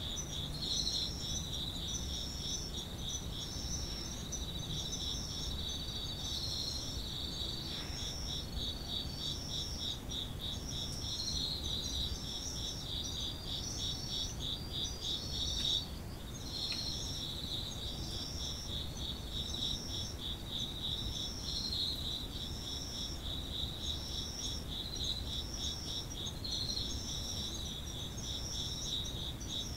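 A chorus of Japanese autumn singing insects. One keeps up a continuous rapid trill, while another repeats a short, higher chirp a little more often than once a second.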